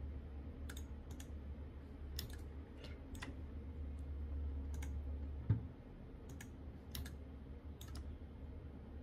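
Computer mouse clicking about a dozen times at uneven intervals, faint, over a low steady hum that drops back about halfway through.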